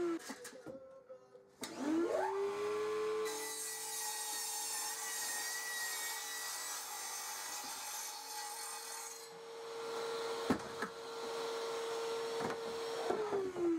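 Electric mitre saw cutting a melamine sheet. The motor winds down at the very start, starts again about two seconds in and rises to a steady whine, and its blade cuts through the board for about six seconds. The saw then runs free and winds down near the end.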